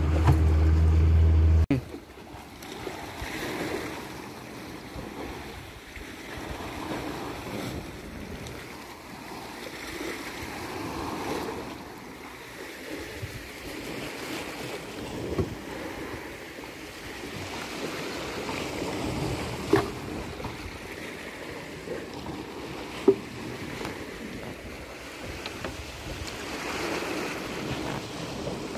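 A fishing boat's engine running steadily for the first second and a half, then stopping abruptly. After that, water lapping and sloshing around the stopped boat with wind on the microphone, and three short knocks.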